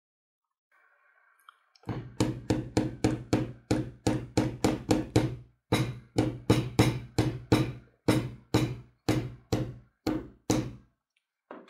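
Hammer tapping the end of an angle-grinder motor armature's shaft in a steady run of knocks, about four a second, each ringing briefly. There is a short break about halfway, and the last few blows come more slowly.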